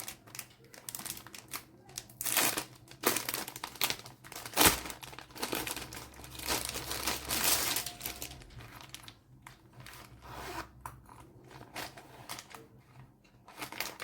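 Packaging crinkling and rustling in irregular bursts as a makeup brush set is unwrapped by hand, with one sharp click about a third of the way in; the handling quietens in the later part.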